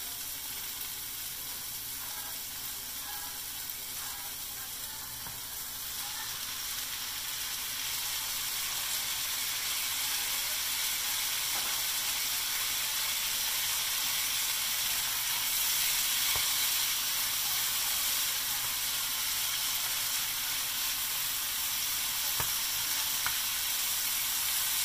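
Diced onions and peppers sizzling in oil in a hot frying pan, the sizzle growing louder from about six seconds in as diced tomatoes go into the pan. Near the end a spatula stirs the vegetables, with a few light taps against the pan.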